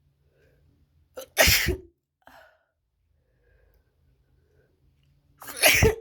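A person sneezing twice, loud and wet, about four seconds apart, each sneeze with a short catch of breath just before the burst.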